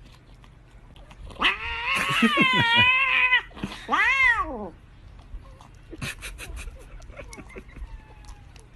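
A cat yowling: one long call with a wavering pitch, then a shorter call that rises and falls. A few sharp clicks follow about six seconds in.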